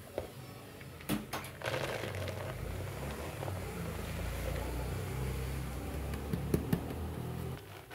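Dry grated soap flakes with baking soda pouring and sliding out of a plastic bowl into a plastic tub, giving a steady rustling hiss. A few sharp knocks of plastic on plastic come about a second in and again near the end.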